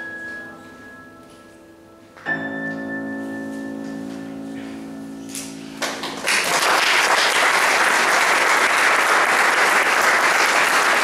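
Grand piano playing the closing chords of a piece: one chord rings and fades, a second, louder chord is struck about two seconds in and held until about six seconds in. Then audience applause breaks out and carries on steadily.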